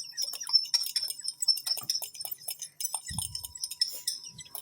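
A spoon stirring slime mixture in a bowl, rapid light clinks and scrapes against the bowl, with a dull knock about three seconds in.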